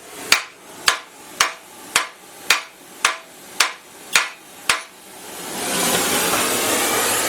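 Nine light hammer blows on a hot steel frame rivet, evenly spaced about two a second, as the rivet is being set; they are half-hearted taps rather than full swings. After the last blow a steady hiss comes up and holds.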